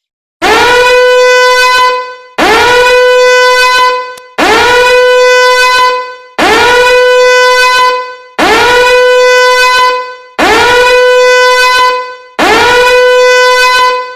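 A horn sounding seven identical long blasts about two seconds apart, each sliding up briefly into one steady note.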